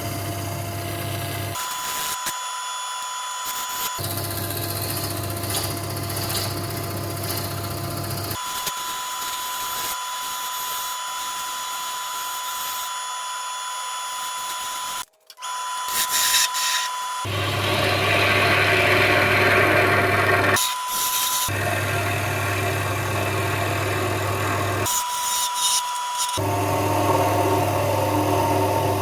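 Wood lathe running with a steady motor hum while a turning tool cuts the spinning apple wood, the sound changing abruptly several times. There is a brief dropout about halfway, and a louder stretch of cutting noise a little past the middle.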